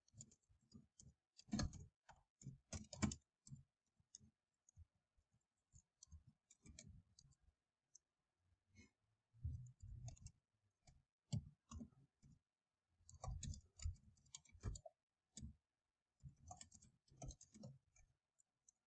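Faint computer keyboard typing: short irregular flurries of key clicks, one flurry per word, with pauses between them.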